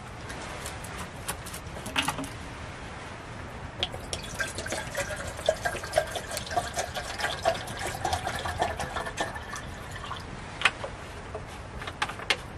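Water being poured into a container, a steady pouring sound from about four seconds in to about ten seconds, with scattered sharp clicks before and after.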